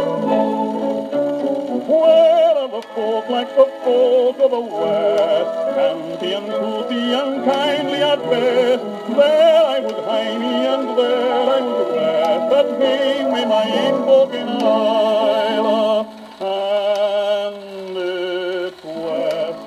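A 1940s 78 rpm record playing through an acoustic portable gramophone's soundbox: a male tenor singing a Scottish song with vibrato. There is almost no deep bass.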